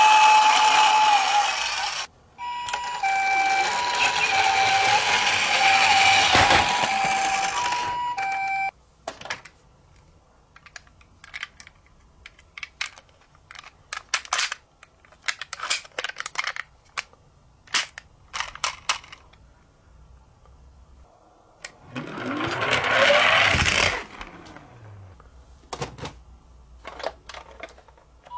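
Battery-powered toy ambulance's electronic hi-lo siren, two alternating tones over a rushing noise, for the first eight seconds or so, then it stops. After that, clicks and knocks of plastic toy vehicles being handled, with a short whirring noise of sliding pitch near the end.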